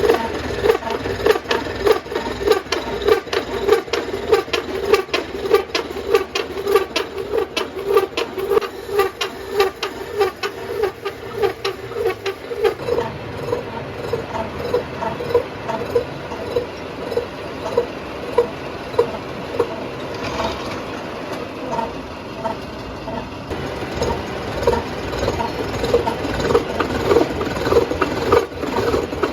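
Repeated rasping strokes of metal being cut or filed in a workshop, about three a second, steady and loud. They ease off for a few seconds about two-thirds of the way through, then resume.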